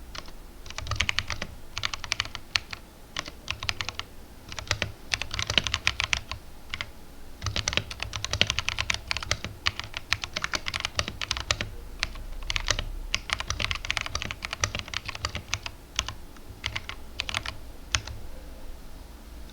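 Typing on a mechanical keyboard with greased tactile brown switches and thick PBT OEM-profile keycaps: rapid runs of keystrokes in bursts with short pauses, stopping a little before the end.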